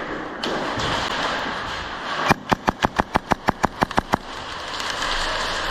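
An airsoft gun firing a rapid string of about a dozen sharp shots, roughly six a second, starting a little over two seconds in and lasting about two seconds.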